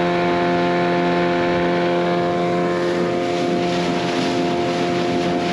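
Outboard motor on an inflatable dinghy running steadily at speed, a constant engine drone. A rushing hiss of water and air past the boat grows louder in the second half.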